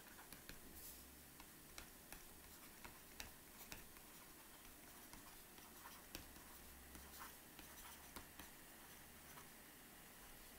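Faint, irregular light taps and clicks of a stylus writing on a tablet or touchscreen, over low room hiss.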